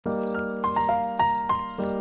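Bright background music: a jingly melody of bell-like notes, a new note about every quarter to half second, over a held low tone.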